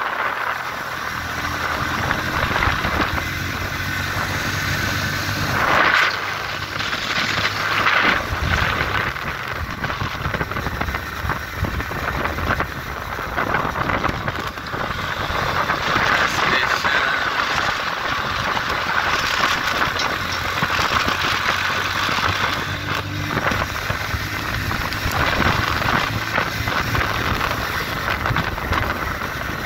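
Motorcycle engine running as it rides along the road, under a steady rush of wind on the microphone.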